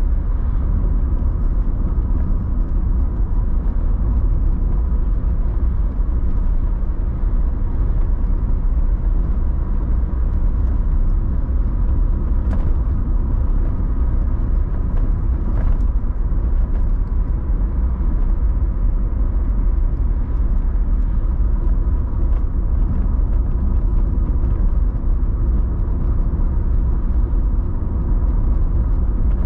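A car driving on the road: a steady low rumble of tyres and engine, with a faint steady whine above it.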